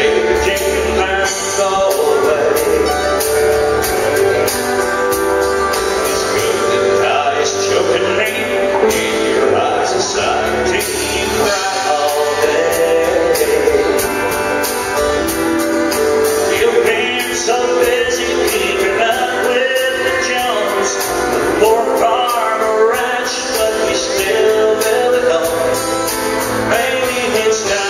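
Live country song: a man singing lead over strummed acoustic guitar, pedal steel guitar and drums, with a steady beat ticking in the high end.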